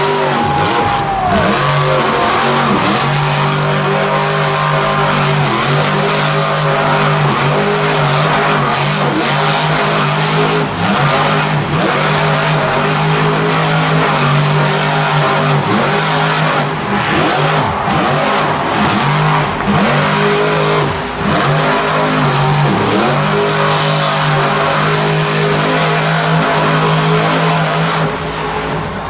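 Monster Mutt Junkyard Dog monster truck's supercharged V8 held at high revs while the truck spins donuts in the dirt, running steadily with a couple of brief dips.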